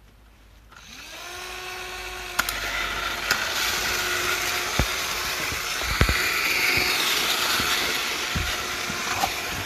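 Electric screwdriver motor spinning a step drill on a modified Plarail toy train. It is switched on about a second in, spins up with a rising whine and keeps running steadily, with the small train motors, and a few sharp plastic clicks and knocks come from the train and drill.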